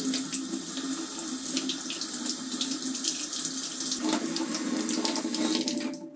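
Tap water running steadily and splashing over fingers and a small metal die held in the stream. The flow cuts off suddenly near the end.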